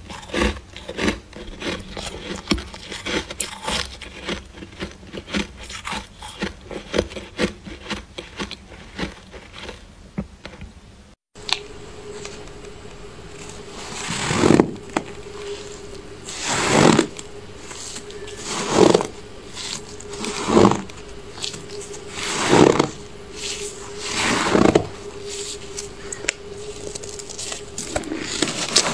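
Freezer frost crunching and crackling in quick, dense clicks. After a brief break, fluffy shaved ice crunches softly as a gloved hand presses into the heap, once about every two seconds, over a steady humming tone.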